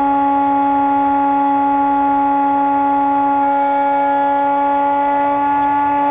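Electric pusher motor and propeller of a Bixler RC foam plane whining at a steady pitch in flight, heard close up from a camera mounted on the airframe.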